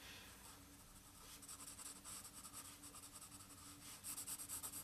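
Graphite pencil scratching faintly on drawing paper in quick repeated shading strokes, a little louder near the end.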